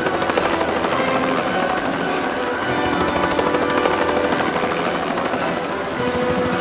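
Helicopter in flight: steady rapid chop of the rotor blades with the engine's running whine over it.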